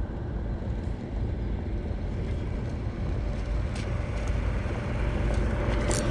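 A golf cart's motor running close by: a steady low rumble that grows a little louder near the end.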